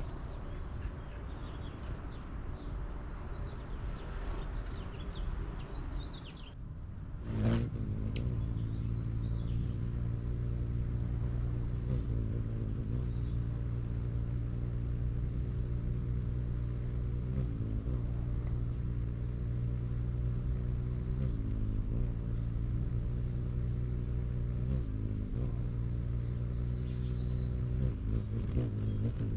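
An engine running steadily at a low, even pitch, starting abruptly about seven seconds in and wavering slightly in pitch now and then. Before it, faint bird chirps.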